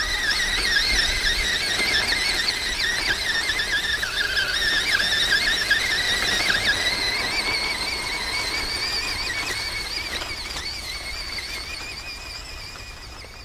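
Electric motor and gear train of an MN Tank 300 RC crawler whining, the pitch wavering up and down with the throttle, growing gradually fainter toward the end.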